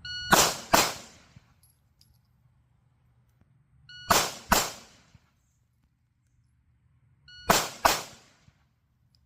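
Shot timer beeps, and each beep is followed at once by a quick pair of 9mm pistol shots from a full-weight CZ Shadow 2 fired without a suppressor. This happens three times: a beep and two shots right at the start, again about four seconds in, and again about seven and a half seconds in.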